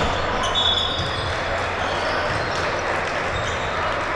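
Basketball bouncing on a gym court over crowd noise in a large hall. A thin, steady high squeal lasts about a second, starting about half a second in.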